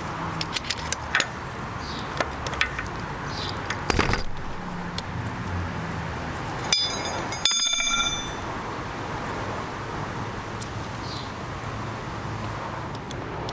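Metal tools and chain parts being handled, clicking and clinking. There are a few light clicks in the first second or so, a sharp knock about four seconds in, and a ringing metallic clink at about seven seconds.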